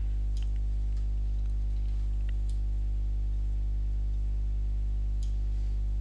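A steady low hum throughout, with a few faint computer-mouse clicks scattered across it.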